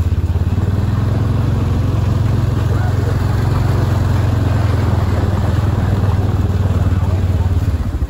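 ATV engine running steadily at low speed with a low pulsing note, easing off near the end as the quad slows.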